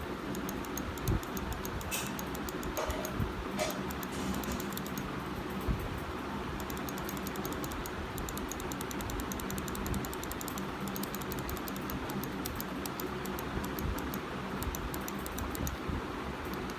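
Razer DeathAdder Elite gaming mouse buttons being clicked over and over, sharp little clicks that come faster, in quick runs of several a second, in the second half.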